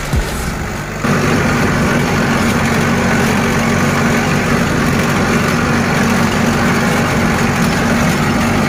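Mahindra Arjun tractor's diesel engine running at a steady speed while it pulls a land leveler, heard from on board the tractor. The even drone sets in about a second in, after a few knocks.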